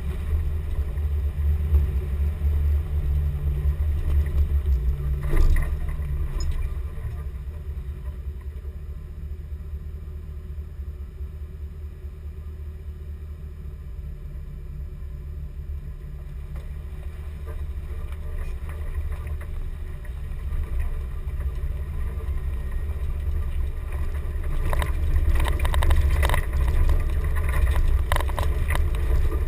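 Chevrolet K5 Blazer truck driving off-road, its engine and drivetrain giving a steady deep rumble that eases off in the middle and builds again toward the end. Sharp knocks and rattles come in over the last few seconds.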